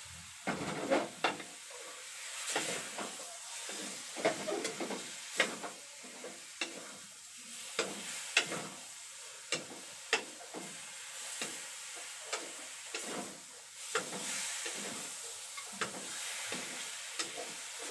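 Cubed pork frying in a wok with no oil added, sizzling faintly as it starts to render its own fat, while a wooden spatula stirs it with irregular knocks and scrapes against the pan.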